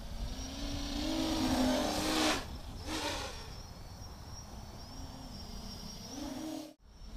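Quadcopter's brushless motors and propellers running in flight, heard from the onboard camera: a steady buzzing hum with a faint high whine, its pitch rising and falling as the throttle changes, over a rush of air. The sound cuts out briefly near the end.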